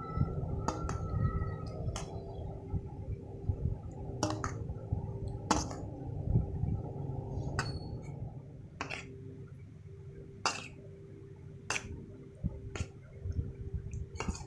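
A spoon clinking against a bowl about ten times, roughly once a second, over the soft churning of a thick yogurt mixture being stirred. The stirring noise thins out after about eight seconds.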